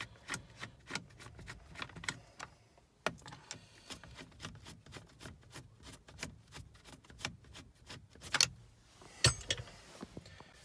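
Screwdriver unscrewing the two cross-head screws from a Nissan NV200's steering-column stalk housing: short sharp clicks at about three a second, with a few louder knocks, the loudest near the end.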